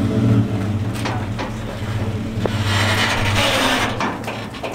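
Tow truck's engine running at low speed while backing a trailer, its low drone fading away. There are a few light clicks, and a rush of hiss for about a second some three seconds in.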